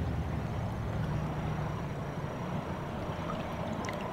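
Steady rush of shallow river water flowing around the landing net, with a few faint splashes near the end.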